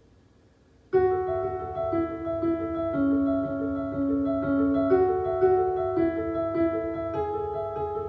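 Solo piano playing an instrumental outro: after about a second of quiet it comes in suddenly with held chords and a simple melody of sustained notes.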